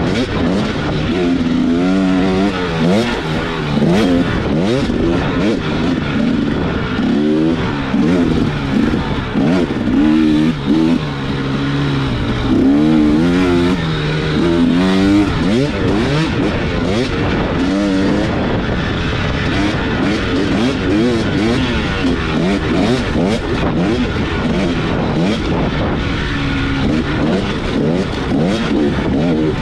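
Enduro dirt bike engine ridden hard, its pitch rising and falling again and again as the throttle is opened and shut, with short knocks and rattles from the rough ground.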